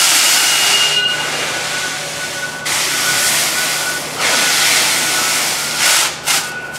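Hand roll of stretch film unwinding under heavy tension as it is wrapped around a pallet: a loud hiss in pulls of a second or two with brief breaks, ending in a couple of short pulls near the end.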